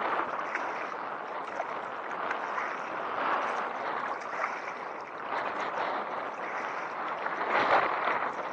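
Water splashing and rushing against a kayak in a strong tidal current, with small splashes throughout and a louder surge near the end.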